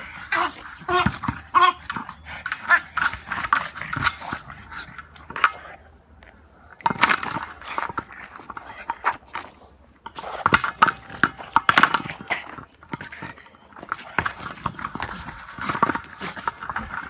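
A French bulldog vocalising as it plays with a large ball, in bursts with short lulls about six and ten seconds in.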